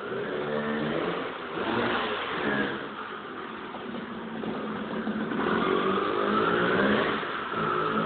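Vespa scooter's two-stroke engine with a Pinasco 102 cc cylinder kit, built for competition only, revving up and easing off several times, its pitch rising and falling, with the longest climb in the second half.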